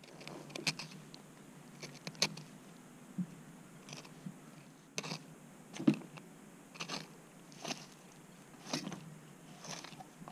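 Fillet knife cutting down along a bass's rib cage, making short, irregular crunching and scraping clicks, about eight of them.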